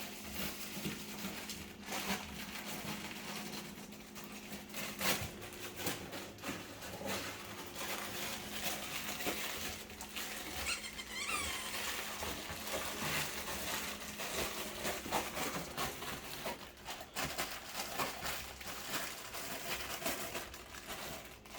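Cane Corso chewing and mauling a plush chip-bag squeaker toy: irregular rustling and crinkling with many small knocks and clicks.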